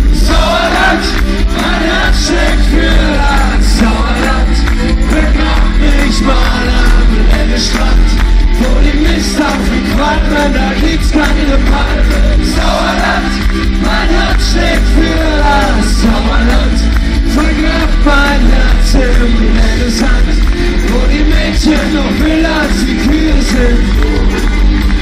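Loud live pop-rock song over a PA system, a male singer's voice over the band, with crowd voices mixed in.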